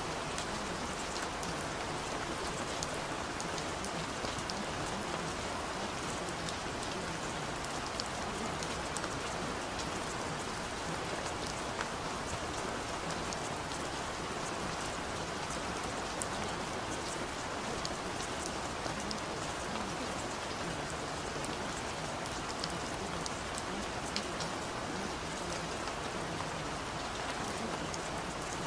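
Steady rain falling, an even hiss with scattered small drop ticks throughout.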